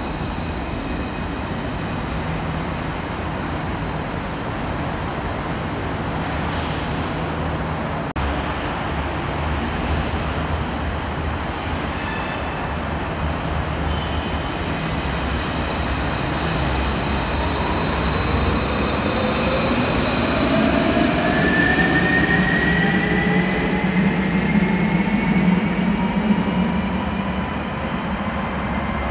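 Alstom Citadis tram running through an underground tram station: a steady rail rumble, joined in the second half by the whine of its traction motors, climbing in pitch as it gathers speed, with the sound swelling louder.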